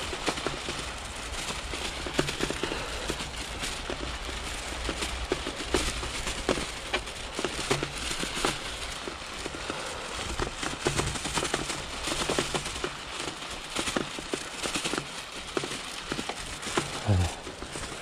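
Bicycle tyres rolling over a thin layer of snow on dry fallen leaves: a continuous crackle of crunches and small clicks, with the bike's rattles and a low steady rumble underneath.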